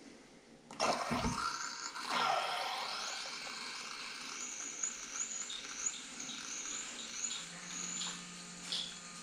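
Beer pouring from a stainless draft faucet into a glass: the tap opens with a sudden hiss about a second in, then the stream runs steadily, fizzing as the head builds, with faint high squeaky chirps through the middle.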